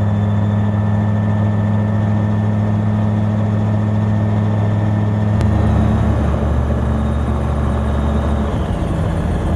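Autogyro engine and pusher propeller droning steadily as heard inside the open cockpit in flight. About halfway through, the drone drops to a lower pitch.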